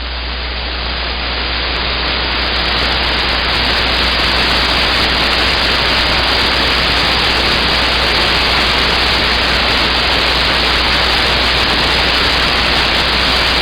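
Loud, steady static hiss from a CB radio receiver, with the channel open between transmissions and a low steady hum underneath. The hiss swells slightly over the first couple of seconds, then holds.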